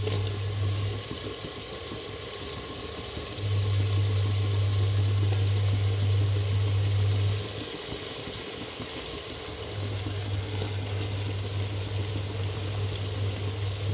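Hot oil and masala gravy sizzling in a pressure cooker as raw jackfruit pieces are laid in. A steady low hum cuts in and out three times over the sizzle.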